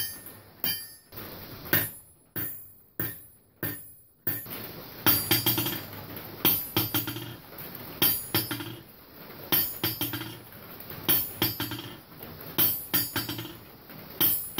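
Hammer strikes on a piece of railroad track used as an anvil, each with a short metallic ring, at a steady pace of about two a second while the track sits on a wooden stump. About four seconds in, the track is on a steel stand for a rebound test: the strikes continue, some as quick clusters of taps, over more background noise.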